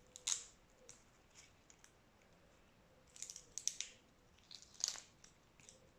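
Boiled shrimp shells crackling and snapping as they are peeled by hand: a few single sharp clicks, then two short clusters of crackles about halfway through and near the end.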